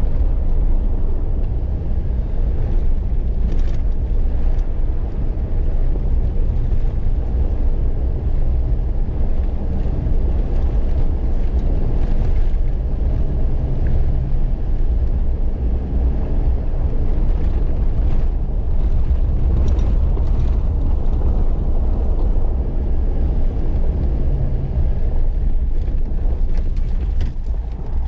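Off-road vehicle driving on a dirt trail: a steady engine drone and tyre rumble, with scattered knocks and rattles from bumps in the track.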